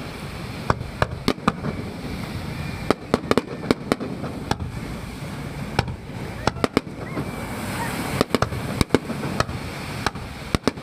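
Aerial fireworks shells bursting in a display: a rapid, irregular series of sharp bangs and crackles. Under them runs a steady wash of sea waves on the shore.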